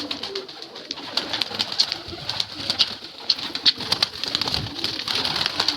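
Domestic pigeons at a loft: a dense run of short, sharp clicks and chirps, with a soft low cooing underneath.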